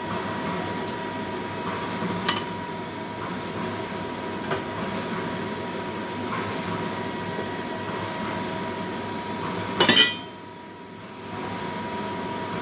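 Kitchen clatter at a stove: light clinks of utensils against cookware over a steady hiss, with a louder clatter about ten seconds in.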